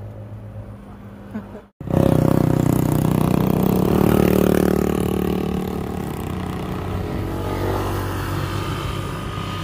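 An engine running steadily. It comes in suddenly after a brief dropout about two seconds in, is loudest for the next few seconds, then eases off a little.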